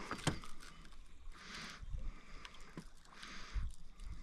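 Water lapping against the hull of a small boat in soft washes that come and go about every couple of seconds, with a few small clicks of handling near the start.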